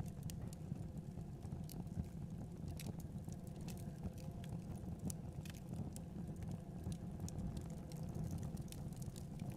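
Wood logs burning in a fireplace, crackling with many small irregular pops over a steady low rumble.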